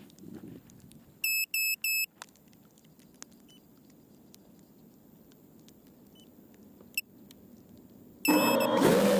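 FPV quadcopter beeping: three short, high, even beeps a little over a second in, a single short blip later, then near the end its electric motors spin up with a rising whine that settles into a steady hum.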